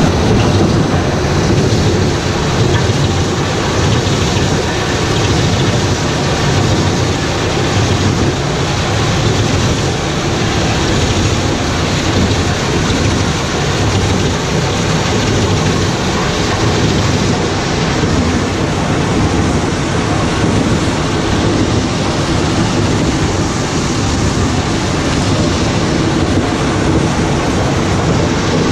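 Tractor-driven Mus-Max wood chipper chipping brushwood fed in by its crane: a loud, steady din of the engine working under load and wood being shredded, with the chips blown out through the discharge spout.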